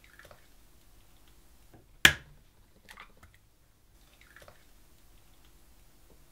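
An egg struck once, sharply, on the rim of a plastic mixing bowl about two seconds in. A few fainter sounds follow as the shell is pulled apart and the egg drops into the flour.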